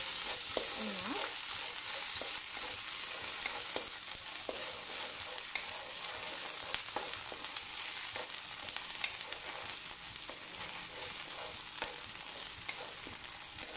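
Sliced onion, garlic and belacan chilli paste sizzling in hot oil in a wok, stirred by a wooden spatula, with scattered light scrapes and taps against the pan.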